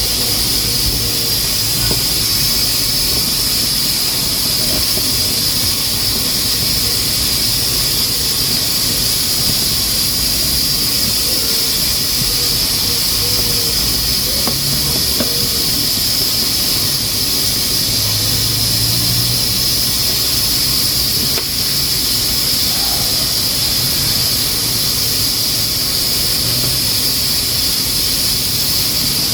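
Pressure cooker hissing steadily as steam escapes from its valve, with a constant high-pitched squeal in the hiss: the cooker is up to pressure while cooking beans.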